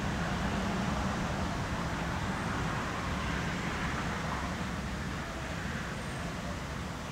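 Distant low rumble, steady and slowly fading, with a broad roar reaching into the middle pitches.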